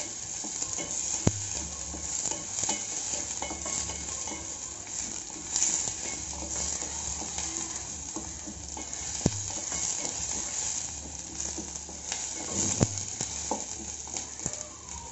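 Sliced onions, garlic and curry leaves sizzling in sesame oil in a stainless steel pot, stirred with a wooden spatula that scrapes the pot and knocks against it a few times.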